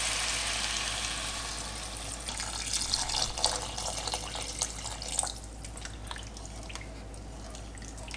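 Water poured from a glass jug into a pot of sautéed chicken and vegetables, splashing steadily, with a wooden spoon knocking in the pot as the contents are stirred; the pour tails off about five seconds in.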